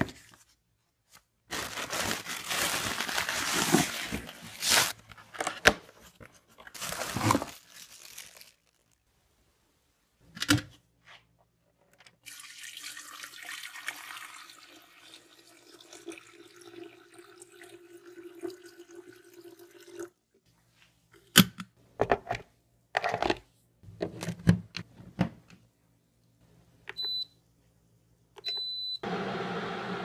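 Paper and cardboard packaging rustling for several seconds, then water running into a Cuisinart electric kettle for about eight seconds. A few sharp clicks follow, then short high beeps from the kettle's control panel and a steady noise as it starts up.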